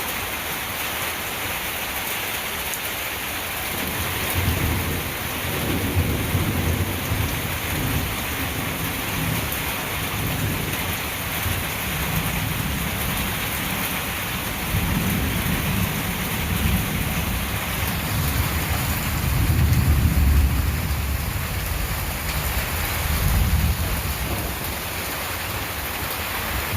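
Steady heavy rain, with thunder rolling in about four seconds in and rumbling on in several long swells, loudest around twenty seconds in.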